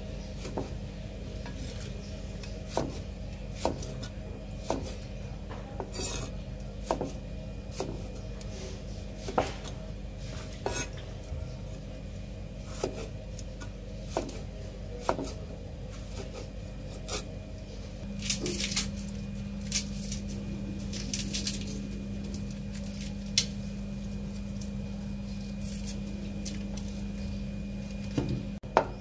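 Cleaver blade knocking on a wooden chopping board as tomatoes are sliced into wedges, roughly one stroke a second, over a steady low hum. Near the end a quick, even run of chopping strokes begins.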